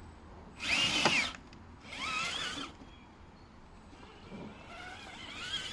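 Traxxas TRX-4 RC crawler's electric motor and geared drivetrain whining in three bursts, the pitch rising and falling with each blip of throttle.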